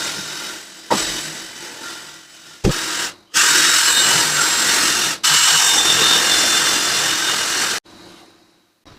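A power tool running in two steady bursts of about two seconds each, with a short pause between them, after a couple of knocks.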